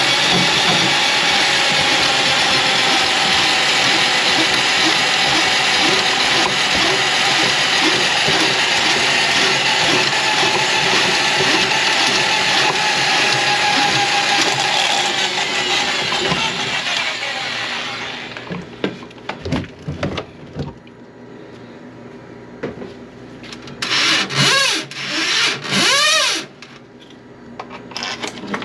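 Electric drain-cleaning machine running steadily while clearing a plugged kitchen sink drain. Its motor winds down about two-thirds of the way through, followed by a few knocks. Near the end it spins up and down in two short spurts.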